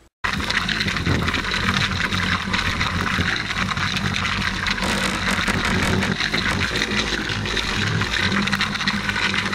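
Electric orbital polisher buffing clearcoat on a motorcycle fairing panel, heard sped up: a loud, dense whir with a choppy texture that starts abruptly and cuts off suddenly near the end.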